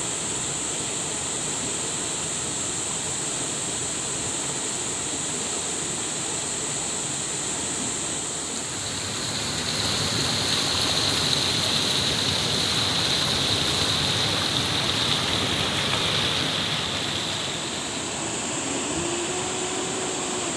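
Rushing water of a rocky river, a steady hiss that grows louder from about nine seconds to about seventeen seconds where water pours over boulders in a small cascade.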